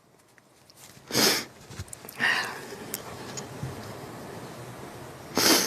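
A person sniffing and drawing breath between sentences: three short, sharp sniffs or inhales, about a second in, about two seconds in and near the end, with faint breathing between.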